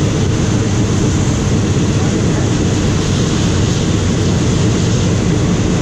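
Steady running noise inside a passenger carriage of a moving train with its windows open: the low rumble of wheels on the rails and the rush of air through the windows, with no change in level.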